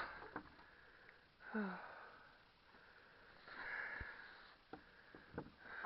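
A person breathing hard and sniffing, with a short falling groan about a second and a half in and a long breath out around three and a half seconds. A few sharp clicks follow near the end.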